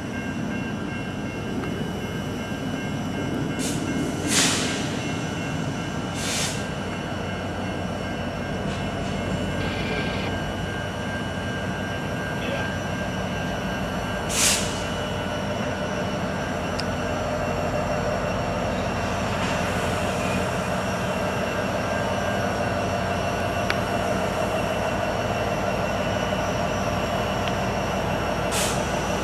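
Freight train running on the rails: a steady rumble of wheels and cars, with a few brief high-pitched bursts of wheel squeal, once about four seconds in, again about two seconds later, about halfway through, and near the end.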